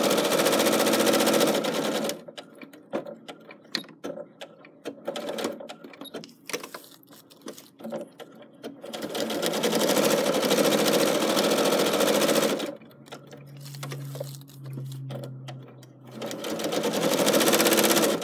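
Domestic electric sewing machine stitching in three runs of a few seconds each, stopping between them while the fabric is turned, with small clicks and taps in the pauses and a low hum before the last run. It is sewing rough free stitching around raw-edged fabric pieces on felt.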